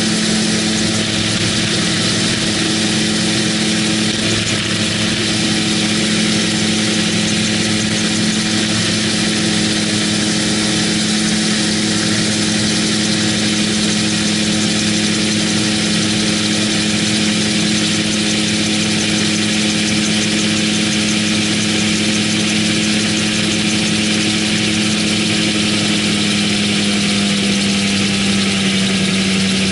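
MTO Sport autogyro's engine and pusher propeller droning steadily in flight, heard from the open cockpit with airflow rushing past; the engine note drops a little near the end.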